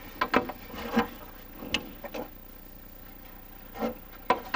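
Scattered light clicks and knocks of hands handling and fitting heater fuel-line parts, about half a dozen separate taps over a few seconds.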